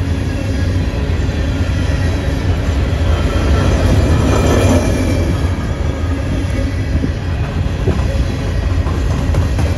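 Freight train of covered hopper cars rolling past close by: a steady rumble of steel wheels on the rails, swelling briefly around the middle.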